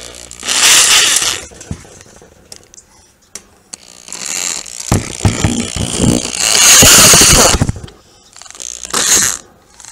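Cordless drill spinning a hooked wire-twisting bit that winds tie wire around a steel post, run in starts: a short burst, a longer run of a few seconds, then another short burst. Its trigger barely varies the speed.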